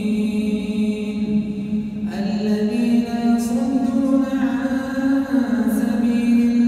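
A man's voice reciting the Quran in a melodic tajweed chant during congregational prayer, drawing out long held notes. The pitch steps up about two seconds in.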